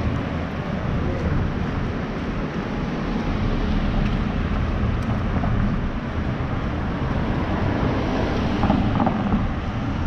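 Cars passing on a road, with steady wind noise on the microphone.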